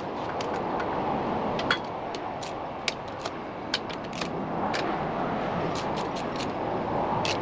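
Scattered light metallic clicks and taps of hand tools being worked on a mower engine, over a steady background hiss.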